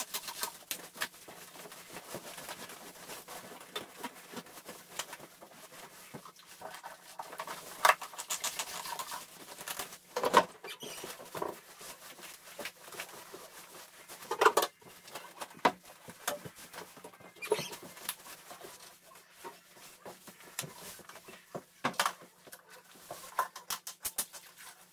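Wet string mop being pushed and scrubbed over a tiled floor: soft irregular swishing and scraping, with a few sharper knocks.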